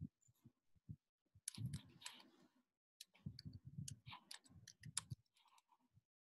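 Faint clicking of computer keys being typed in quick runs: one burst about a second and a half in, and a longer one from about three to five seconds in.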